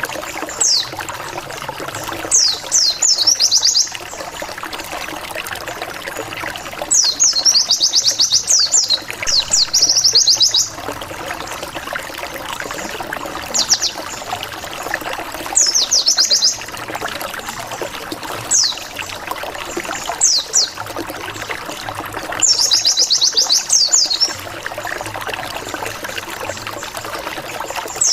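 White-eye (pleci) lure song: phrases of fast, high descending 'wit wit wit' notes and rapid trills, each one to three seconds long and repeated every few seconds. It is a challenge song meant to make rival white-eyes answer, and it plays over a steady trickle of running water.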